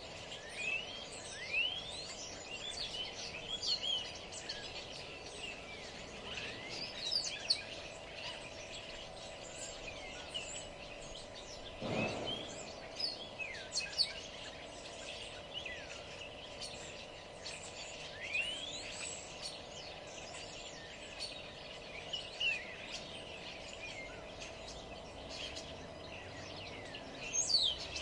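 Many songbirds chirping and singing at once, short calls and quick whistles overlapping continuously over a faint steady hum. A single dull thump sounds about halfway through.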